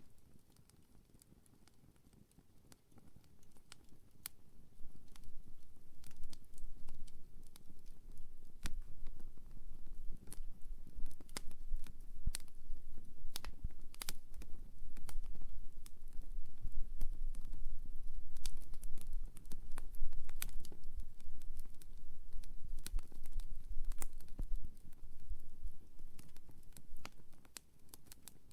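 Wood campfire crackling, with irregular sharp pops and snaps over a low rumble that rises after the first few seconds and eases near the end.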